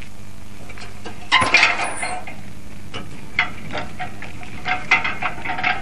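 A bicycle loaded with a large metal milk can clinking and rattling as it is turned and wheeled off, with a cluster of clanks about a second and a half in and looser rattles later.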